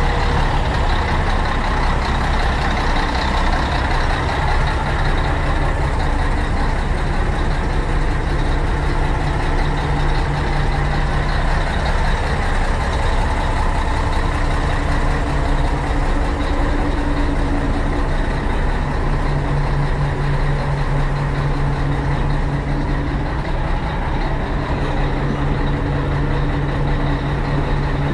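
Diesel bus engine idling steadily, a continuous low hum.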